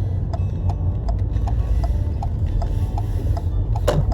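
Car turn-signal indicator ticking evenly, about two and a half ticks a second, over the low hum of the running car, with one louder click near the end.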